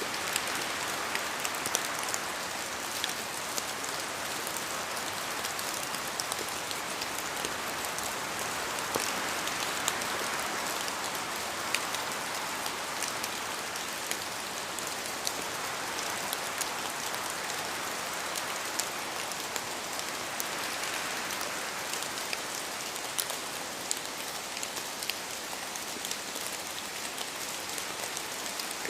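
Steady rain falling in a forest, a constant hiss with many scattered sharp drops striking close by as they fall from the trees.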